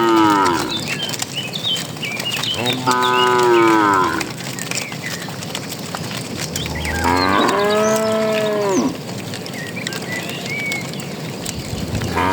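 Cattle mooing repeatedly, with long, low calls a few seconds apart. The first call tails off just after the start, two full moos follow about three and seven seconds in, the second one longer at about two seconds, and another begins right at the end.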